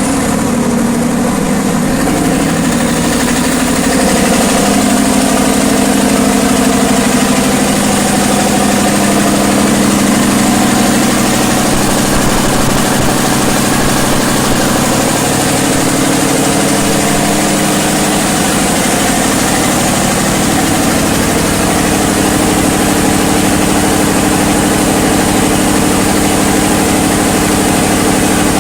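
500 kVA FG Wilson diesel generator set running at a steady speed: a loud, even engine drone that holds constant.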